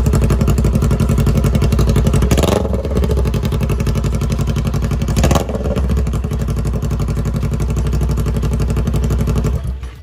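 Kawasaki Z400 parallel-twin motorcycle engine running at idle through a bare exhaust pipe end with no muffler canister, blipped twice about two and a half and five seconds in, each rev rising and dropping back. It cuts off near the end.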